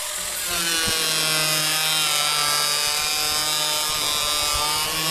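Handheld angle grinder with a cutting disc running and slicing lengthwise along a PVC pipe: a steady, high-pitched whine over rough cutting noise.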